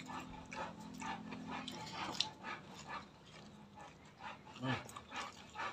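Close-up eating sounds: irregular crunching and wet chewing of raw leafy greens and other raw vegetables, with lip smacks.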